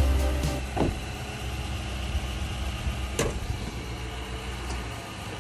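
A V8 SUV's engine idling steadily, with two short knocks, a small one about a second in and a sharper one about three seconds in.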